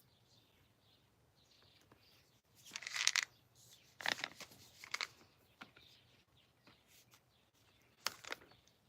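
Packaging being torn open and handled: a sharp tear about three seconds in, then a few crinkling, rustling handling noises, and one more short rustle near the end.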